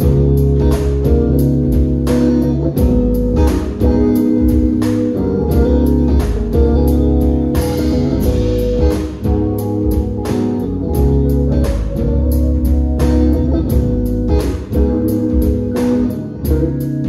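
Live funk band playing: a heavy bass line under sustained keys and horns, with steady drum hits.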